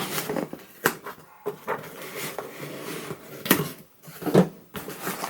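A mail package being handled and opened by hand: rustling and crinkling of the packaging with a few sharp knocks and clicks.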